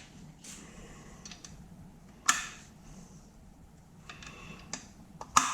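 Scattered clicks and clinks of metal hardware and hand tools being handled, with two sharper knocks, one about two seconds in and one near the end.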